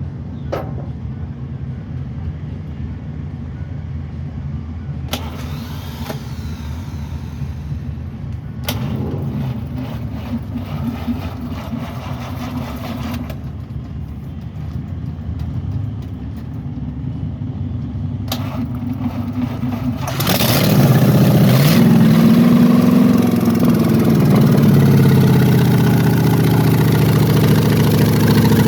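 Hot-rod 324 Oldsmobile V8 in a 1923 Ford roadster running at idle with a low rumble, then revved hard from about twenty seconds in, its pitch rising and falling. A few short sharp clicks sound over the idle.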